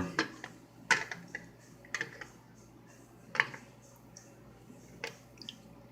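Light-up fidget spinner being flipped over and handled in water: scattered light clicks and taps, about eight at irregular intervals.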